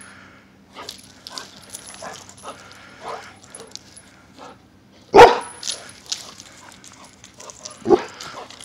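A Xoloitzcuintli (Mexican hairless dog) giving a series of short yips, with a loud bark about five seconds in and another bark near the end.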